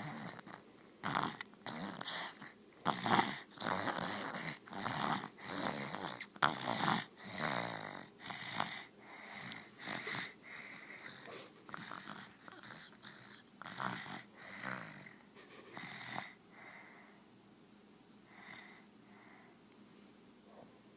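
Snoring: a rapid run of short, wheezy snores, more than one a second, which fades after about sixteen seconds to a few faint breaths.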